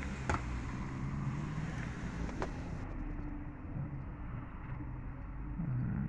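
Steady low vehicle rumble with two light clicks, one just after the start and one about two and a half seconds in.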